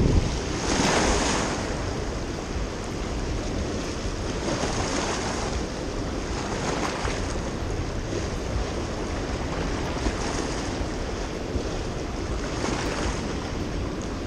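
Spillway outflow rushing and churning over rocks: a steady roar of whitewater that swells now and then, with wind rumbling on the microphone.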